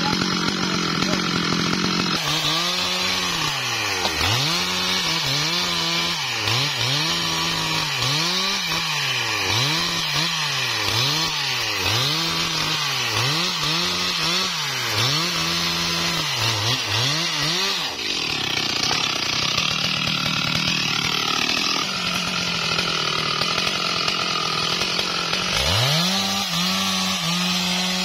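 Stihl MS 382 two-stroke chainsaw cutting through a wadang log at high revs. For much of the time its pitch dips and recovers about once a second as the chain loads and clears in the cut, with a steadier stretch in between.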